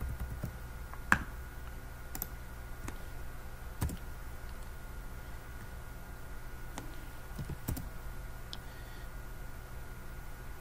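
A handful of scattered computer keyboard keystrokes and clicks, a few seconds apart, over a low steady background hum.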